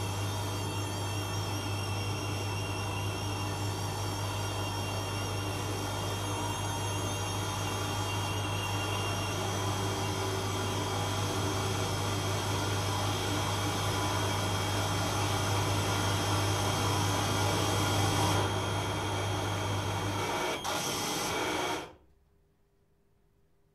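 Live electronic noise performance: a dense wash of hiss with several steady high tones over a low hum. The hum drops out about 20 seconds in, and the whole sound cuts off suddenly about two seconds later, leaving near silence.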